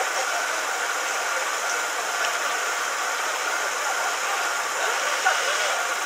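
Steady street noise at a closed railway level crossing: idling engines and traffic, a steady high tone, and scattered voices of people waiting, with a small knock about five seconds in.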